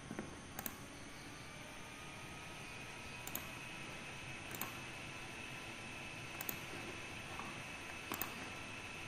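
Computer mouse clicks: about half a dozen short, sharp clicks a second or two apart, over a faint steady hiss with a thin high whine.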